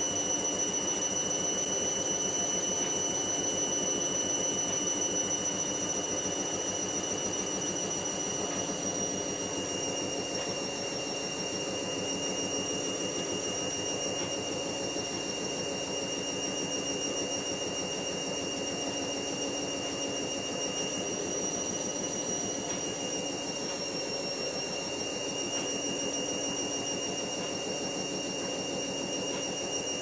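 Hotpoint First Edition HV5L125 washing machine motor running, a steady high whine over a lower drone. The whine sags slightly in pitch about a third of the way in and again about three quarters through, as the motor holds unstable speeds, a fault.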